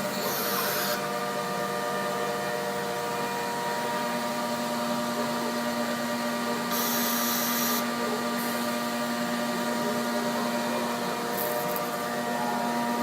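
The 10 hp Colombo spindle of a MultiCam 5000 CNC router runs steadily as the machine works, with a steady whine. There is a short hiss at the start and another about seven seconds in, and a lower tone steps up about four seconds in.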